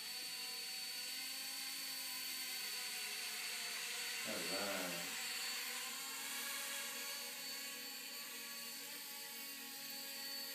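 Small remote-control toy helicopter whirring steadily, its electric motor and rotor making a high whine. A short voice sounds briefly about four seconds in.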